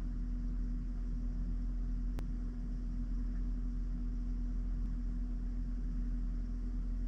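Jeep Wrangler's engine running steadily, a low even hum with a faint click about two seconds in.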